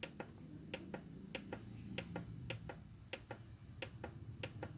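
Faint, sharp clicks from a synthesizer's panel buttons being pressed, a few a second at uneven spacing, over a low hum.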